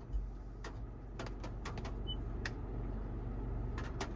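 Low steady hum inside a car cabin, with scattered irregular light ticks, several close together in the first half and a pair near the end.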